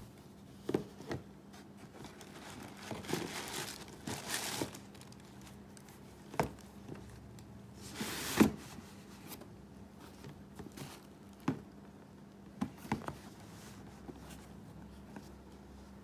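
Sneakers and a cardboard shoebox being handled: rustling and crinkling, with scattered soft knocks and taps, the loudest a little past halfway through.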